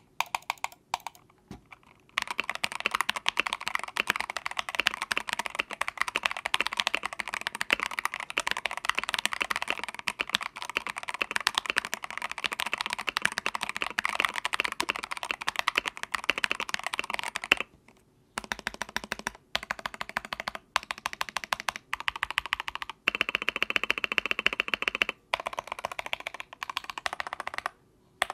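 Mechanical keyboard being typed on fast: Akko ACR59 with Jelly Pink linear switches, which are known for their clacks, under thin polycarbonate ASA Clear keycaps. A few scattered keystrokes lead into dense typing. Shorter bursts of typing with brief pauses follow later.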